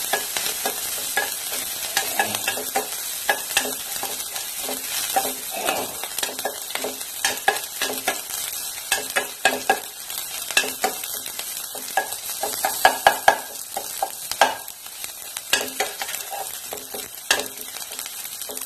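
Chopped ginger, garlic and green chilli sizzling in hot oil in a stainless steel pan on high heat, stirred with a spatula that clicks and scrapes against the metal. The steady hiss of frying runs under frequent spatula strokes, with a burst of louder scrapes a little past the middle.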